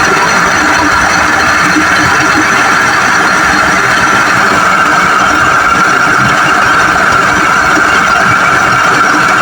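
Haier automatic washing machine running with a loud, steady mechanical drone and a constant high whine, the noise of a faulty gearbox.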